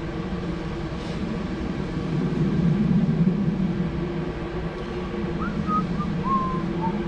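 A person whistling a short run of notes over a steady low hum, starting about five seconds in.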